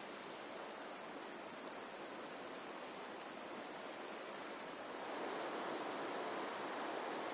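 Shallow river water rushing steadily over rocks. It grows louder and brighter about five seconds in. Two brief faint high chirps come in the first three seconds.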